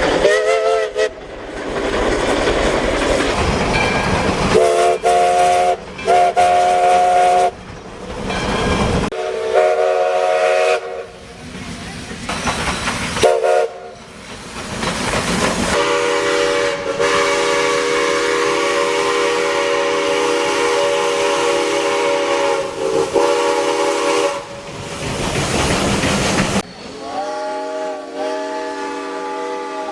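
Steam locomotive chime whistles sounding several notes at once: a string of short blasts, then one long blast of about eight seconds, then another near the end. Each starts and stops abruptly, with a noisy rush of rail and steam sound in the gaps.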